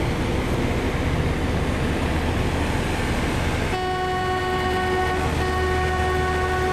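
Speed boat's engine running steadily under way, with wind and water rushing past. A little past halfway, a steady pitched tone comes in over it, breaks off briefly and resumes.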